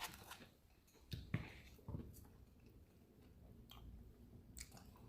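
Faint chewing with a few soft clicks, people eating fried chicken.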